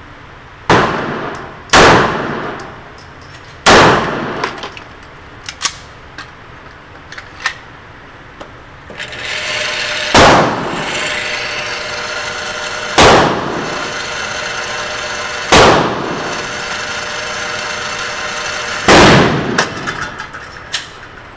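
Gunshots ringing through an indoor range: seven single shots, spaced one to three seconds apart, each with a long echo. From about nine seconds in, the electric target carrier runs with a steady whir under the shots, then stops near the end.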